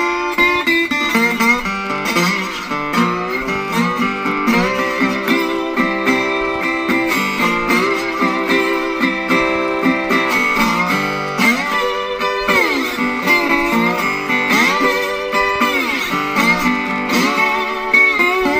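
Delta blues slide guitar played on a National Tricone Style 1 metal-bodied resonator guitar, its notes gliding up and down in pitch under the slide, several times in the second half.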